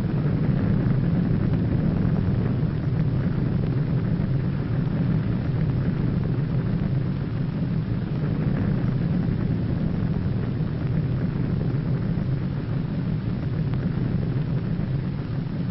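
Steady low rumbling roar with a hiss over it: the sustained rumble of a huge underwater explosion as its column of water and spray rises and collapses.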